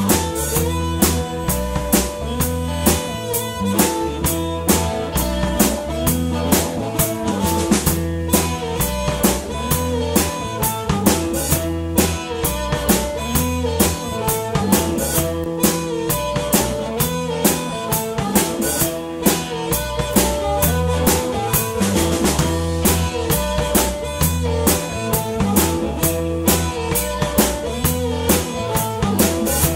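Live blues-rock band playing with no vocals: a drum kit keeps a steady driving beat under a repeating bass and electric guitar riff.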